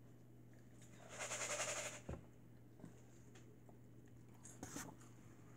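Quiet eating and drinking noises at a table: a crackling, rustling burst lasting about a second, starting about a second in, then a few faint clicks and smacks over a steady low hum.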